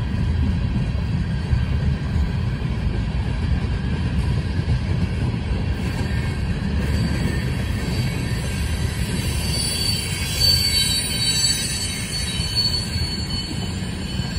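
Freight train tank cars rolling past with a steady low rumble of wheels on rail. From about halfway in, a thin high-pitched squeal from the wheels joins the rumble, loudest about two-thirds of the way through.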